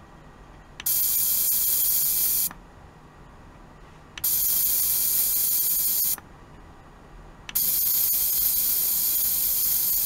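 Handheld sonic vibration device pressed against a steel tray holding a jar of water, switching on three times, each for about two seconds. Each run gives a loud high-pitched hiss that starts and stops abruptly.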